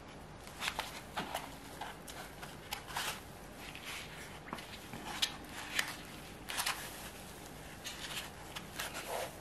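Small gel polish bottles being handled and set down: scattered light clicks and taps with soft rustling, a dozen or so over several seconds.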